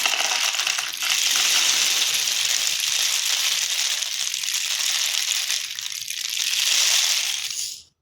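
Popcorn kernels pouring and cascading through a homemade rain stick, a paper tube studded with toothpicks, in a steady dense rattling hiss that cuts off abruptly near the end.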